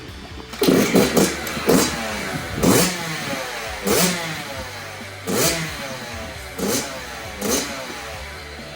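Yamaha YZ65's single-cylinder two-stroke engine revved in about eight sharp throttle blips, roughly one a second, the pitch falling back after each. It is running on its freshly rebuilt top end.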